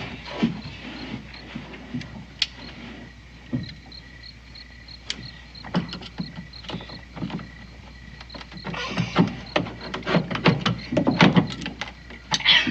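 Irregular wooden knocks, creaks and scrapes as a board is worked by hand to pull a nail loose, busier and louder for the last few seconds. A faint, even high ticking runs behind.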